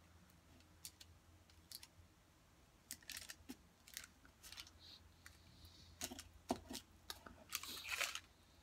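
Faint scattered clicks and crinkles of small objects being handled close by, in short clusters, most likely a small container of cannabis concentrate being picked up and opened.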